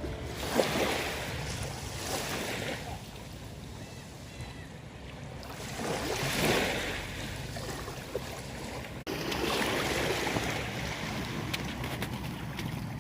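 Sea waves washing onto the shore, the surf swelling and falling back several times, with some wind on the microphone.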